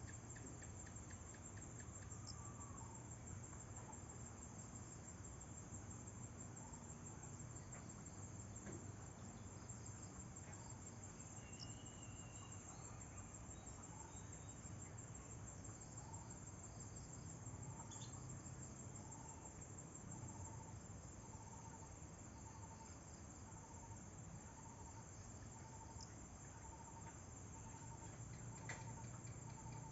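Faint night insects, likely crickets, trilling in a steady high-pitched chorus. From about halfway through, a short lower call repeats roughly once a second.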